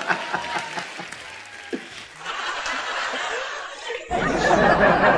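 Laughter and chuckling fading out, mixed with a TV comedy show's studio audience laughing and clapping. A little after four seconds the sound changes suddenly to a steady murmur of studio crowd noise.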